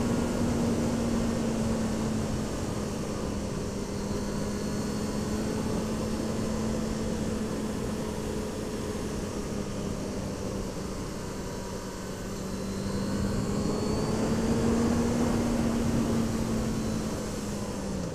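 Motorcycle engine running at a steady cruising pitch under a constant rush of wind on the microphone. The engine pitch rises a little well past the middle and drops back just before the end, as the throttle eases for a bend.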